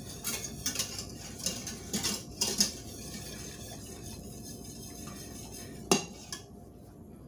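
Wire whisk stirring a cream sauce in a stainless steel saucepan, its wires scraping and clinking against the pan in quick irregular strokes, then a single sharp metal clink about six seconds in before the stirring quietens.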